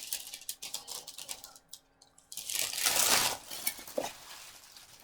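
Takeout food packaging being handled: crinkling and clicking, then a louder rustle about halfway through, and a small knock just after.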